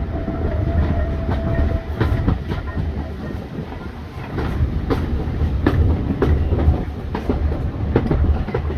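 Heritage railway coach running along the track: a steady low rumble with irregular clicks as the wheels cross rail joints, heard from the open carriage window. A faint steady tone sounds over the first two seconds.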